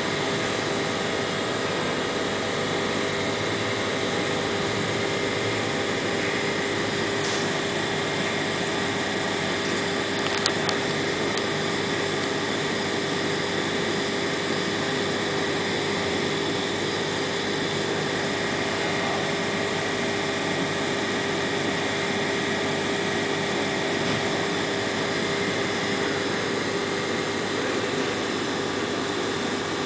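Steady mechanical hum with one constant tone over a hiss, never changing in level. There is a single brief click about ten seconds in.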